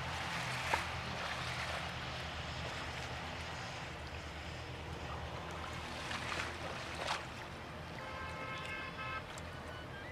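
A steady low motor hum, with a few short sharp knocks, and a brief horn-like tone with several even pitches about eight seconds in.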